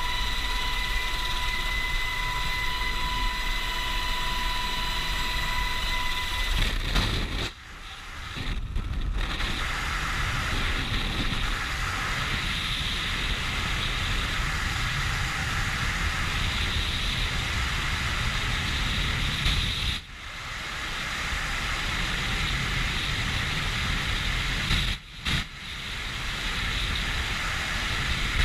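HH-60 Pave Hawk helicopter cabin noise with a steady high whine through the open door for about the first six seconds. Then, after a short gap, the steady rush of free-fall wind over the microphone, cutting out briefly a few times.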